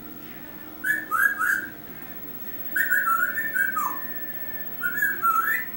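Short high whistled notes in three quick bursts of three to five notes each. Most notes flick upward, and one in the middle burst slides down.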